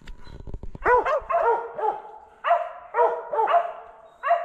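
Mountain cur barking treed, a fast run of sharp barks at about three a second with a short break midway, marking a squirrel up the tree. A brief low rustling noise comes just before the barking starts.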